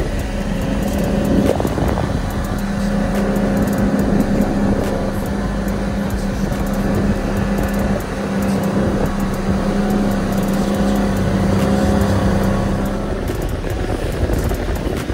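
Mercury outboard motor running at speed with a steady drone, over the rush of wind and spray along the hull. Near the end the drone drops away.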